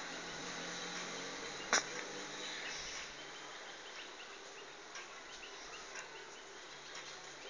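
Faint, short, high chirps repeating over a steady background hiss, with one sharp click about two seconds in.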